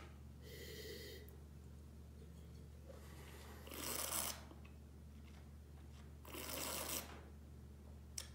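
A wine taster sniffing a glass of red wine, then sipping it and drawing air through the wine in his mouth. There is a short sniff about half a second in, then two longer faint breathy draws, one building up to about four seconds in and one near six and a half seconds.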